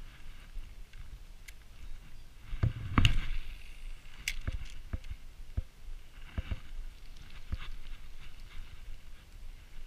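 Handling noise from a spinning rod and reel being cast and worked: a string of short knocks and clicks with rustling, the loudest knock about three seconds in.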